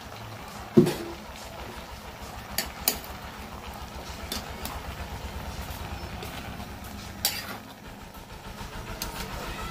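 Metal spatula knocking and scraping against a pan while stir-frying pinakbet vegetables. There is a sharp knock about a second in and a few lighter clicks later, over a steady low hum.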